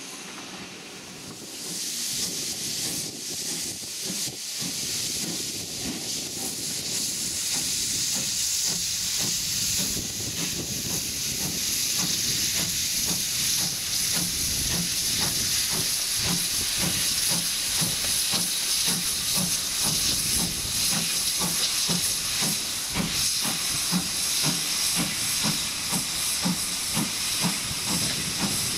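GWR 2800 class 2-8-0 steam locomotive No. 2857 starting away with its train, its open cylinder drain cocks hissing loudly. Its exhaust beats build into a steady chuffing rhythm about halfway through, everything getting louder as it comes closer.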